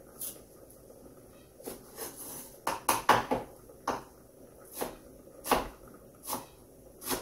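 Kitchen knife slicing ginger against a wooden cutting board: a run of short, irregular cuts about once a second, with a quick flurry of cuts around three seconds in.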